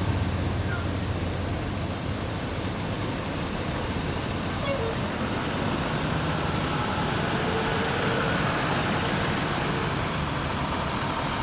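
Parade vehicles going by at low speed: a pickup truck's engine passes close, then a diesel fire engine's engine comes in slowly, over steady road noise.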